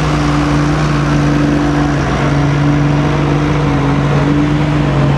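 Diesel Dodge Ram pulling truck's engine under full load dragging a weight-transfer sled. It is held at a steady high pitch and sounds strong.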